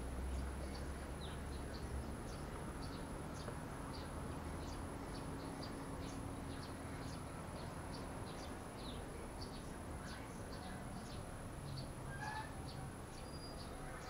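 Small birds chirping: short, faint, high chirps come a few times a second over a steady low background noise.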